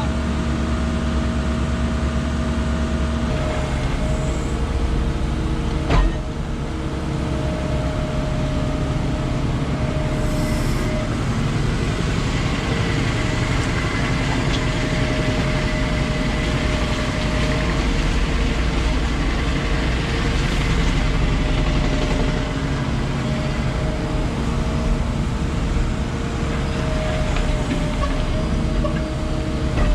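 Diesel engine of heavy earthmoving equipment running steadily under work, with a single sharp knock about six seconds in.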